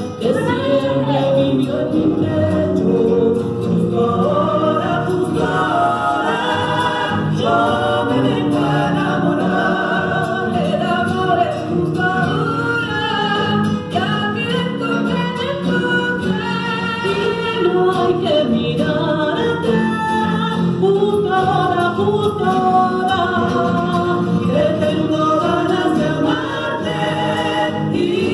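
A sung folk song played through loudspeakers for dancing.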